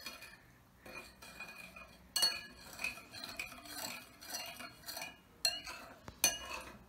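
Metal spoon stirring salt into water in a ceramic bowl, scraping and clinking unevenly against the bowl, with the sharpest clinks about two seconds in and again near the end.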